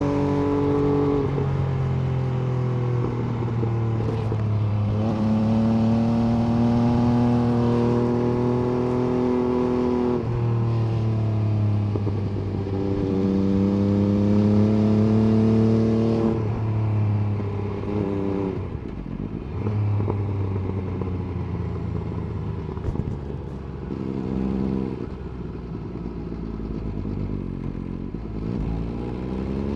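MV Agusta F3 800's three-cylinder engine accelerating through the gears, its pitch climbing and dropping back at each upshift, several times in the first half. Later it runs quieter at lower revs, then picks up again near the end.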